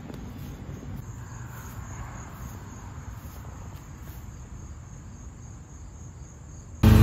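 Faint insects chirping in a steady repeating pattern over a low outdoor rumble. Near the end a riding mower's engine cuts in suddenly and loudly.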